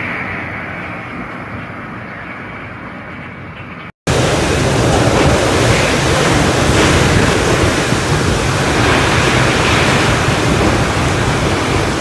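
Storm-force wind blowing across the microphone. A moderate rush of wind fades a little at first. After a brief break of silence about four seconds in, a much louder, steady rush of wind noise fills the rest.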